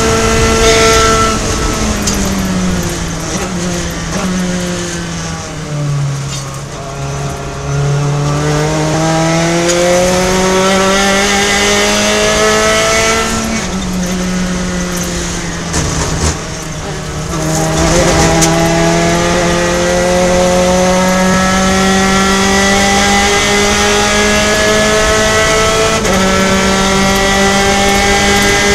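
In-car sound of a Gen3 Spec Racer Ford's four-cylinder engine at racing speed. In the first few seconds the revs fall in steps as the car brakes and downshifts from fifth into a corner. Then the engine climbs under throttle, upshifting about halfway and again near the end as it pulls back into fifth.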